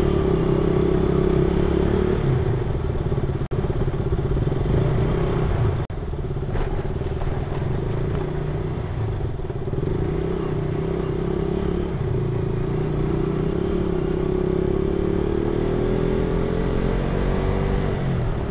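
Motorcycle engine running steadily at road speed, heard from on the bike. There are two momentary drops in sound a few seconds in, and the engine note rises gradually near the end as the bike speeds up.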